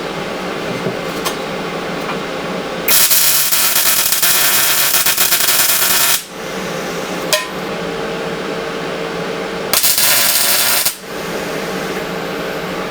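Two loud bursts of even hissing noise from a workshop tool: one lasting about three seconds, starting about three seconds in, and a shorter one of about a second near the end. Between them comes a steady background hum with a few light clicks.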